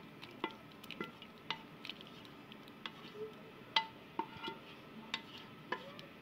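A wooden spatula scraping cooked lentils out of a metal pot into a glass bowl: about a dozen irregular light clinks and taps of spatula and pot against the dishes, several ringing briefly.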